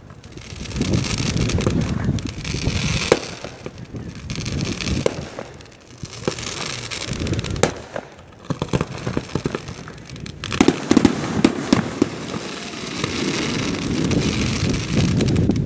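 Aerial fireworks shells launching and bursting: a run of bangs and crackles, with a quick cluster of sharp reports about ten to eleven seconds in.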